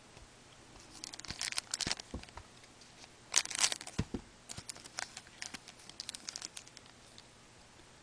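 A 2011-12 Panini Certified hockey card pack being torn open, the wrapper crinkling and tearing in bursts of sharp crackles, loudest about three and a half seconds in.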